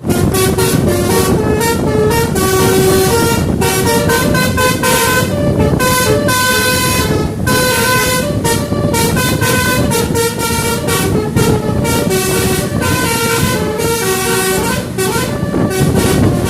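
Basuri musical horn on an Agramas bus playing a tune of short and held notes that step up and down in pitch, over steady noise.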